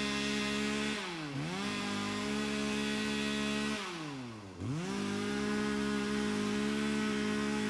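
Two-stroke chainsaw running at high revs. Twice the revs drop and climb straight back up: briefly about a second in, and deeper for about a second around four seconds in.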